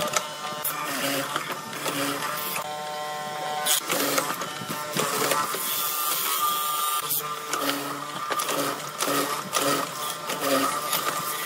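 Chisel mortising machine running with a steady motor hum, its square chisel plunging into hardwood again and again as it cuts a mortise, with a short pause about six seconds in.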